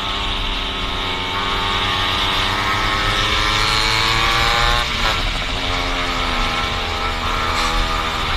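Two-stroke motorcycle engine running hard, its pitch climbing slowly; about five seconds in it breaks off sharply and then sinks lower.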